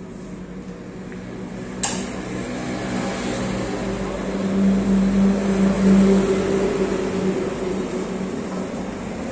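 One sharp click of billiard balls striking about two seconds in, then a passing vehicle's engine hum that swells through the middle and eases off.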